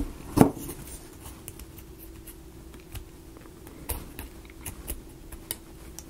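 Small clicks and taps of wooden model-kit pieces being handled and fitted together by hand, with one louder knock about half a second in.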